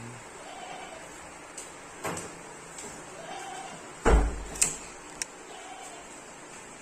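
A few knocks: one about two seconds in, then a heavier thud about four seconds in, followed closely by a sharp click and a lighter tick.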